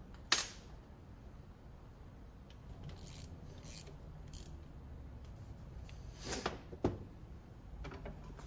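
Hand work on a classic VW generator in a bench vise as its brushes and brush springs are fitted: a sharp click just after the start, light rubbing and scraping, then a knock and a short click about six to seven seconds in.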